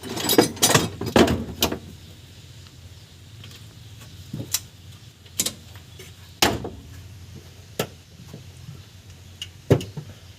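Metal hand tools clinking and knocking against engine parts while bolts are undone during engine teardown: a quick run of clanks at the start, then single knocks every second or two.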